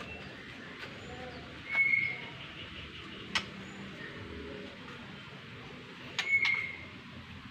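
Small birds chirping: two short, high calls about four and a half seconds apart, with a few sharp clicks between them, over a steady background hiss.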